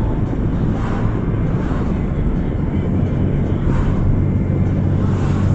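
Car engine running with a broken exhaust flexi joint, making a loud, steady low rumble as exhaust escapes at the break.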